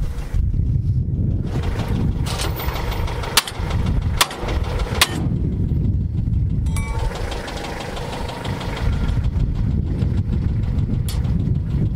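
Tractor engine idling steadily behind the three-point hitch. Three sharp metal knocks come a little over three, four and five seconds in, and another near the end: a hammer tapping the hitch pins into the lift arms.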